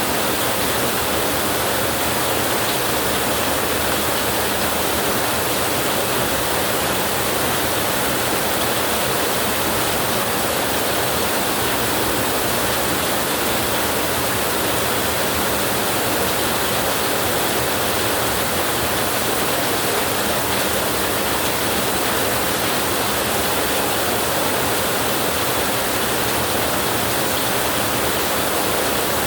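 Steady rain, an even hiss that does not change, with no thunder.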